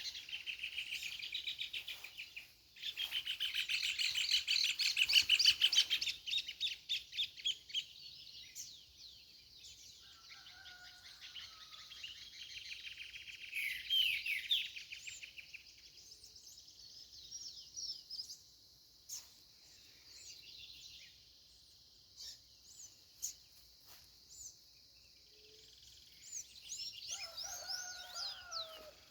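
Songbirds singing: a dense run of rapid high chirps and trills for the first several seconds, thinning to scattered chirps, with a lower call near the end.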